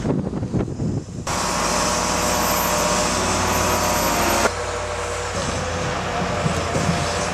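Heavy machinery engines running steadily on a piling site: a timber truck's loading crane and a crawler pile-driving rig. The sound changes abruptly about a second in and again after about four and a half seconds.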